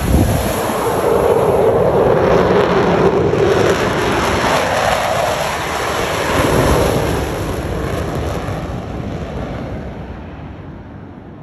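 The Blue Angels' four Boeing F/A-18 Super Hornet jets roaring overhead in diamond formation. The jet roar is loud as they pass, then fades away over the last few seconds.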